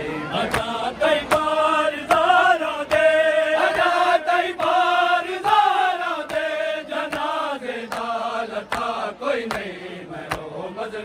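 A group of men chanting a noha, an Urdu mourning lament, in long drawn-out lines. Sharp slaps of matam, palms beating on chests, keep a steady beat about every two-thirds of a second.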